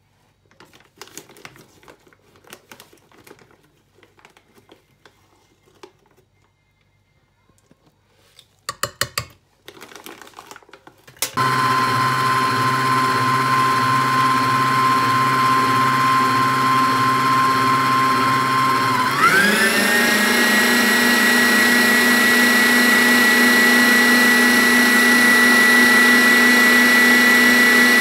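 An electric stand mixer with a whisk attachment starts up a few seconds in and runs at low speed with a steady whine, beating cocoa into the sponge-cake batter. About two-thirds of the way in it is switched to a higher speed, and the whine rises smoothly to a higher pitch and holds there. Before it starts there are only a few faint clicks and knocks.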